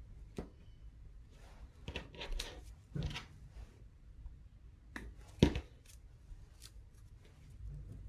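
Paper strips being handled and glued with a glue stick: soft paper rustling with scattered light clicks and taps, the sharpest about five and a half seconds in.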